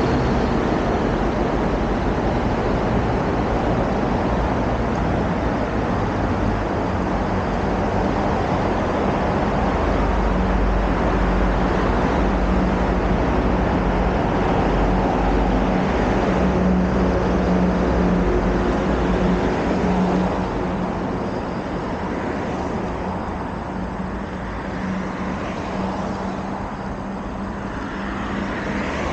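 Steady road traffic noise, dropping somewhat about two-thirds of the way through.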